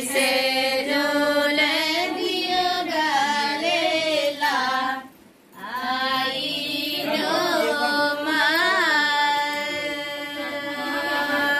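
Female voices singing a Hindu devotional bhajan (kirtan): two long sung phrases with held, wavering notes, broken by a short pause for breath about five seconds in.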